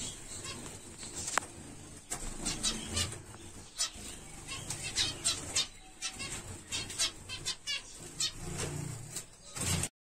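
A flock of zebra finches chirping, many short high calls overlapping throughout, with the flutter of wings as birds fly between perches.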